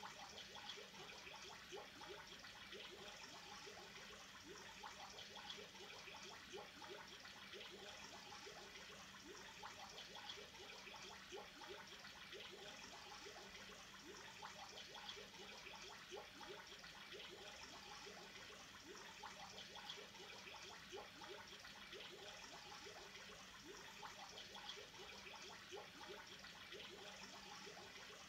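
Faint bubbling and trickling of water circulating in an aquarium, over a steady low hum.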